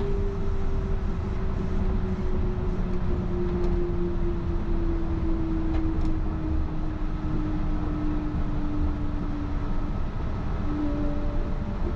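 Yurikamome rubber-tyred automated guideway train running, heard from inside the car: a steady rumble of the tyres on the guideway under a motor whine that falls slowly in pitch as the train slows. Near the end a second, higher whine comes in.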